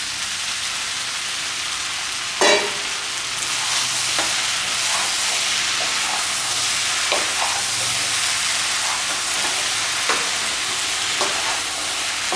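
Pork trotters, onion and freshly added tomatoes sizzling and frying in hot oil in a wok as they are stirred, a steady hiss with a few faint scrapes. A brief louder knock comes about two and a half seconds in.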